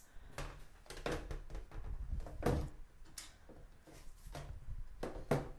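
Scattered light knocks and clicks, about seven spread irregularly over a few seconds, the sound of objects being handled and moved about in a small room.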